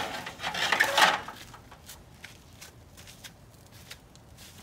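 Two loud bursts of rustling, handling noise in the first second or so, then only faint scattered clicks and ticks.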